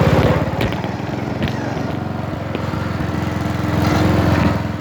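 Riding lawnmower engine running hard with its governor removed. It is loud at first, eases about half a second in, and swells again about four seconds in as the throttle and load change.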